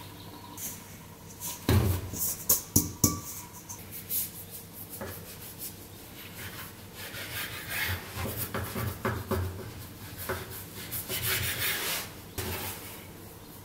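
Dough being handled on a bamboo cutting board: several sharp knocks about two to three seconds in, then rubbing and scraping as a knife cuts through the dough against the board and the pieces are pulled apart.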